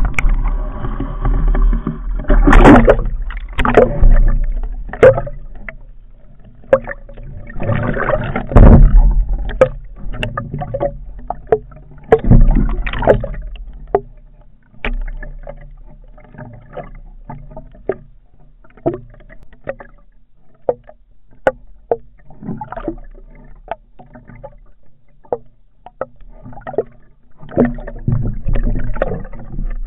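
Underwater sound: water rushing and swirling, with irregular sharp knocks and clicks from a speargun and its line being handled. The rushing swells loudest a few times in the first half, and the clicks run on through the quieter second half.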